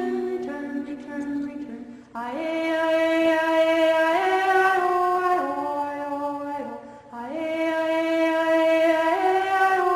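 Slow, melodic chanting: long held notes that step up and down between a few pitches. It breaks off twice, about two seconds and seven seconds in, as if for breath, then resumes.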